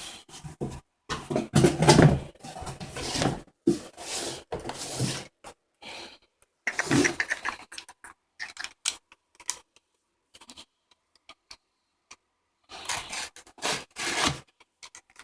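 A cardboard box and its packaging being handled and unpacked: irregular bursts of scraping and rubbing, with a mostly quiet stretch in the middle.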